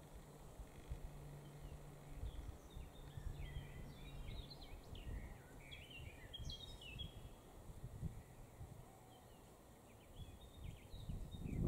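Faint outdoor ambience with a small bird twittering in quick high chirps, from about two seconds in to past the middle and again near the end, over a low rumble.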